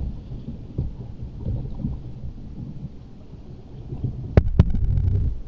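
Low rumbling noise on a canoe-mounted camera's microphone, with two sharp knocks close together about four and a half seconds in.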